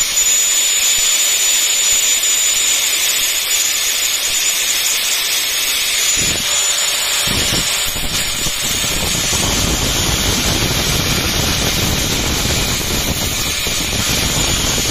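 Electric angle grinder running with a steady high whine while the broken tip of steel cutting pliers is ground against its abrasive disc to reshape it to a point. The metal-on-disc grinding rasp becomes fuller and heavier from about six seconds in.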